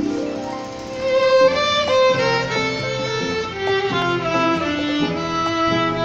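Violin bowed, playing a melody of distinct notes: a held note at first, then quicker, louder notes from about a second in.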